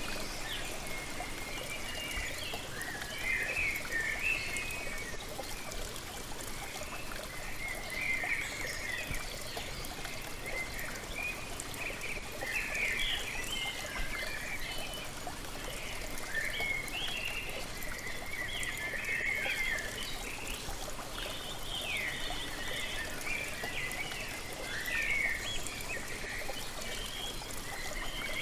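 Steady rush of falling water, with birds chirping and twittering over it in short bursts throughout.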